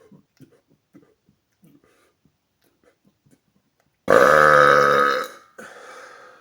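A man's loud, long burp about four seconds in, lasting just over a second with a deep, even, pitched drone, followed by a softer breathy sound. Before it, only faint small clicks and mouth noises.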